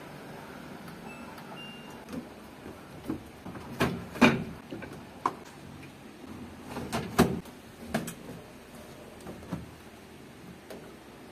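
Samsung top-load washing machine: two short electronic beeps from its control panel as buttons are pressed, then a series of sharp plastic clacks and knocks as the lid and the detergent dispenser drawer are opened and handled.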